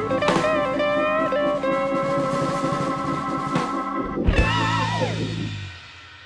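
Background music with guitar and drums, with bending guitar notes; it fades out near the end.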